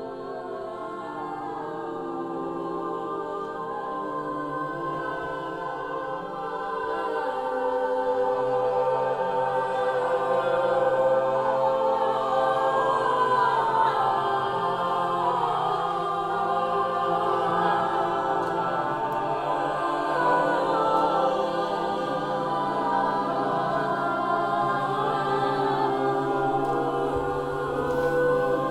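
A choir singing sustained, layered chords, swelling in volume over the first several seconds and then holding.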